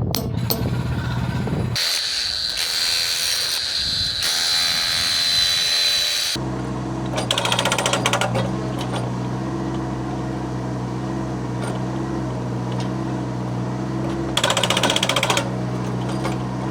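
Powered concrete breaker (jackhammer) at work: rapid hammering in two bursts of about a second each in the second half, over a steady low hum. Earlier there are a few seconds of a high, steady whine.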